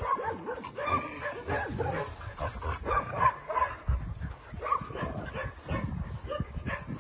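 Several dogs giving short, high whines and yips again and again, over low rustling.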